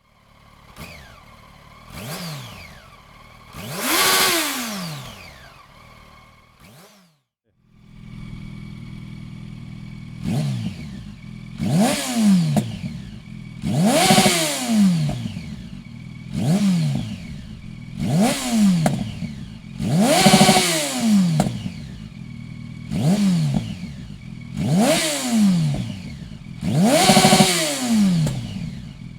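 Yamaha FZ8 Fazer's inline-four engine through an aftermarket Dominator silencer, revved in quick throttle blips that climb and drop right back. After a brief break it settles into a steady idle, blipped sharply about every two seconds.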